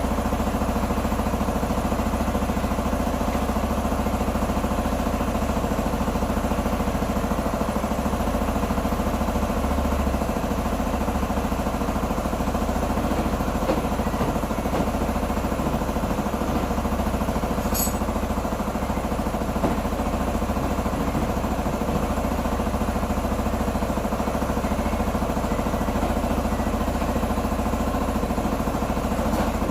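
Q2 125 motorcycle engine idling steadily, with one brief sharp click just past the middle.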